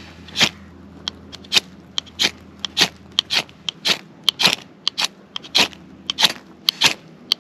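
Ferro rod (fire steel) scraped repeatedly with a metal striker, about a dozen short, sharp rasping strokes at roughly two a second, in an attempt to light fuel paste with its sparks.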